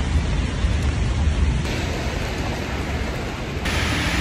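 Rainy city street ambience: a steady hiss of rain and tyres on wet road over a low traffic rumble. The sound changes abruptly twice, growing hissier near the end.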